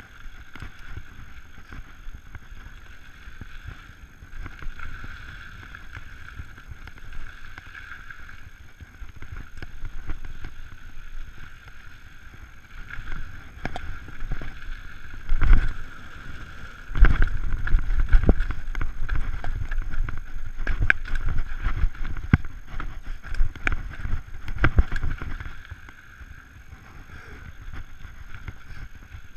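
Giant Trance 29 mountain bike descending a dirt trail, heard from a camera on the bike or rider: wind over the microphone and tyres rolling on dirt, with a steady high whirr. From about halfway through, a stretch of loud rattling and thumps comes as the bike bounces over rough ground, then it eases near the end.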